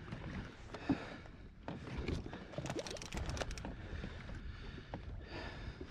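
Small waves lapping and slapping against the plastic hull of a Hobie Outback kayak, a steady low wash of water, with scattered small clicks and knocks and a denser run of them around the middle.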